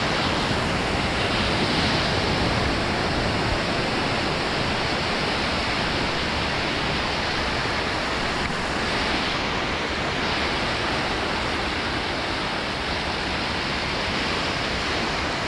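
Ocean surf breaking and washing up a sandy beach: a steady, even noise with no separate events.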